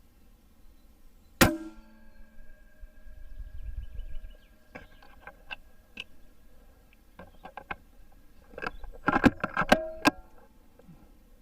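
A single sharp shot from an Altaros M24 PCP air rifle about a second and a half in, with a short ringing after it. It is followed by scattered metallic clicks and then a quick run of louder clicks and clacks near the end.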